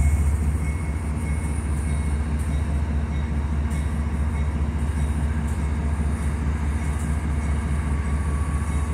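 Two CSX GE Evolution-series diesel locomotives with V12 engines running steadily at low throttle, in notch one, as they start a freight train pulling slowly away: a steady low rumble.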